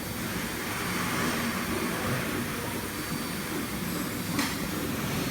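Steady machine noise of a 5-axis CNC router running, with a single short click about four and a half seconds in.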